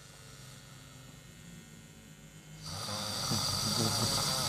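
A sleeping person snoring through a wide-open mouth: a quieter breath for the first two and a half seconds, then a loud snore starting about two-thirds of the way in.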